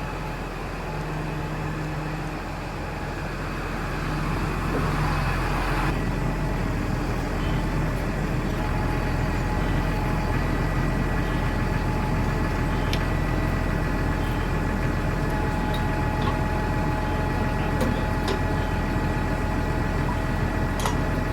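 Tractor engine running steadily with a constant hum, getting a little louder about four seconds in.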